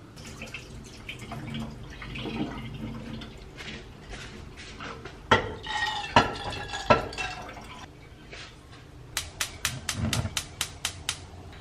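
Barley grains poured from a small metal bowl into a white pot, the bowl clinking against the pot's rim three times with a short ring. Then a gas hob's igniter clicks rapidly, about five clicks a second for two seconds, as the burner is lit.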